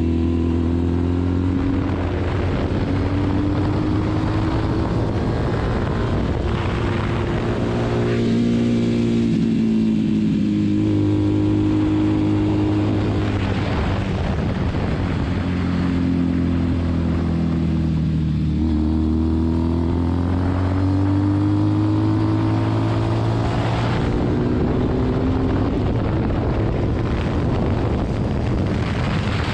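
Motorcycle engine heard from on board at track pace, its pitch rising and falling repeatedly as the rider accelerates and backs off, with a steady rush of wind.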